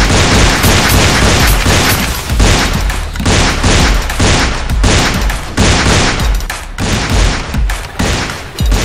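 Loud, rapid gunfire sound effects: volleys of shots in quick succession with heavy low thumps and only brief breaks, a realistic firearm sound laid over a toy-blaster shoot-out.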